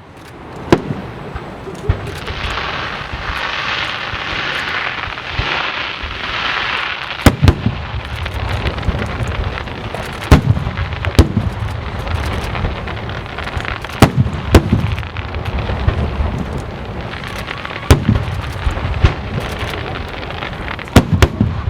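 Aerial fireworks shells bursting overhead. A few seconds of dense crackling come first, then sharp booms every one to four seconds, some in quick pairs, over a continuous rumble.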